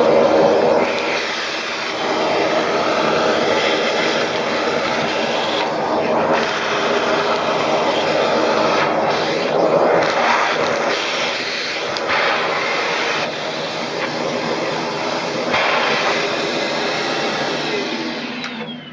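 Philips FC8578/69 bagged cylinder vacuum cleaner running with its motor whine and rush of air, sucking debris off the floor through the bare end of the hose. The airflow sound shifts in level and tone every few seconds as the nozzle moves, and fades near the end.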